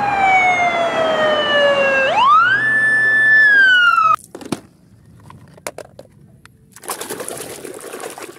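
Ambulance siren wailing: a slow falling tone that sweeps quickly back up about two seconds in, holds high, then cuts off abruptly. After that, a few faint clicks, then water splashing and sloshing as a toy is scrubbed in a plastic basin.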